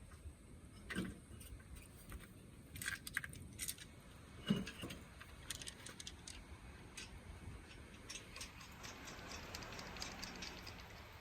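Hand tools clinking and knocking on metal during car brake work, with faint scattered clicks, the loudest about four and a half seconds in. From about eight and a half seconds in comes a run of quick light ticks.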